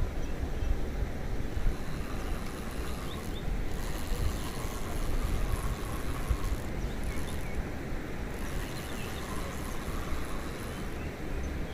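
Wind buffeting the microphone: a steady low rumble with a faint outdoor hiss above it.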